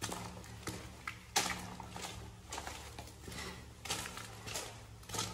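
Footsteps crunching on grit and gravel inside a corrugated steel culvert pipe, a steady series of steps.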